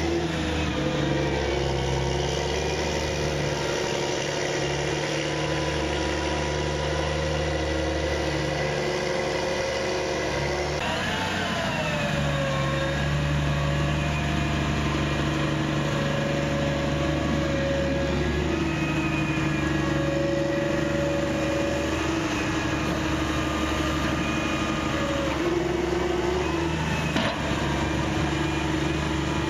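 Diesel engine of a Challenger MT765C rubber-tracked tractor running steadily under load while pushing silage. Its pitch rises and falls briefly a couple of times.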